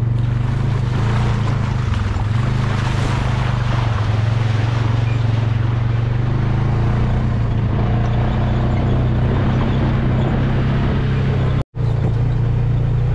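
Side-by-side UTV engine running steadily as it drives over wet ground, with tyre and brush noise strongest in the first few seconds. The sound drops out for an instant near the end.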